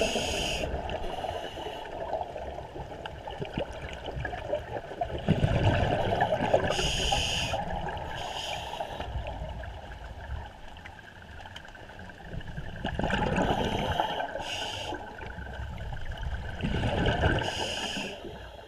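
Scuba diver breathing through a regulator: short hissing inhalations and longer bubbling, gurgling exhalations, repeating every few seconds.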